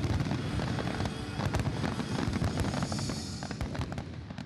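Fireworks display: a dense run of bangs and crackling over a low rumble, with music underneath, dying down near the end.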